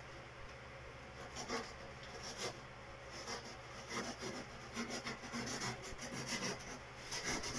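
A hand-held cutter sawing through the cardboard of a refrigerator box, in short, uneven rasping strokes that begin about a second in.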